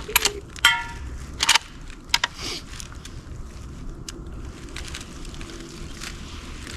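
A quick series of sharp knocks and clicks in the first two and a half seconds, one with a short metallic ring, then a few fainter clicks.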